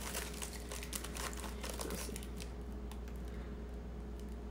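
Plastic wrapper of a sleeve of graham crackers crinkling faintly while fingers flick through the crackers, with small light clicks that thin out after about two seconds. A steady low hum runs underneath.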